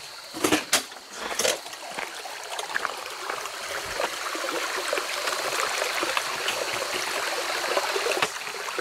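A few sharp knocks and clatters in the first second and a half, then a shallow stream running steadily over a gravel bed.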